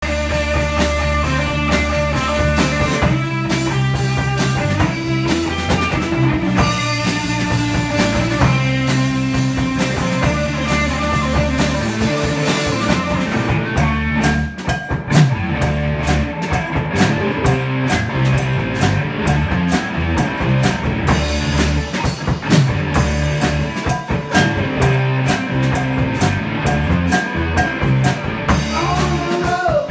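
Live rock band playing an instrumental passage on electric bass, electric guitar and drum kit, with no vocals.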